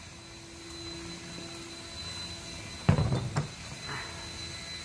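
Steady drone of a leaf blower blowing off a driveway, with one short, louder knock about three seconds in.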